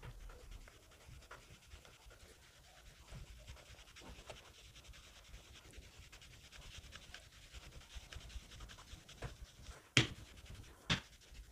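Rolling pin rolling soft dough out on a floured wooden board: faint scraping and rubbing with small ticks, and two sharper knocks of the pin on the board near the end.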